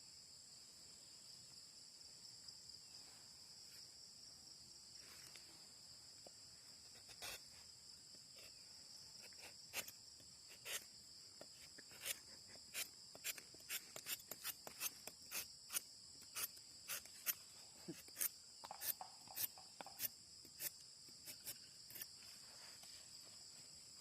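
Crickets chirring steadily in two high-pitched bands. From about ten seconds in comes a quick series of short, sharp clicks, one or two a second, as the tapping knife cuts into the rubber tree's bark.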